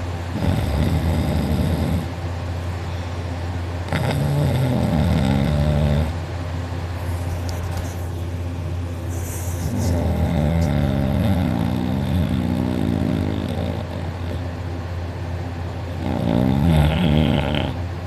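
A man snoring loudly in deep sleep: four heavy snores a few seconds apart, one every breath, each lasting about two to four seconds. A steady low hum runs underneath.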